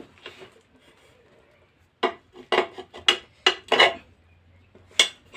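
Metal tyre levers clinking and knocking against a steel motorcycle wheel rim as the tyre is prised off it: a quiet start, then a quick run of about eight sharp metallic clinks, and one more near the end.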